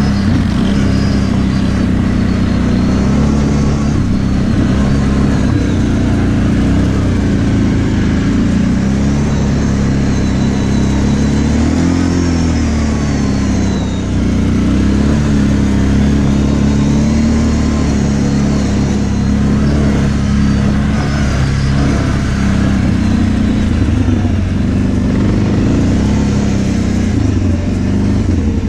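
Kawasaki KVF 750 Brute Force ATV's V-twin engine running under throttle while riding, its pitch wavering with the throttle and swelling briefly about halfway through.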